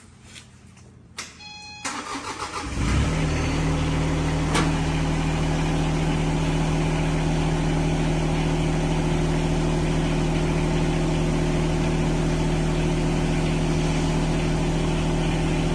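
Mini excavator engine being started: a click and a short beep, about a second of starter cranking, then the engine catches nearly three seconds in and settles into a steady idle.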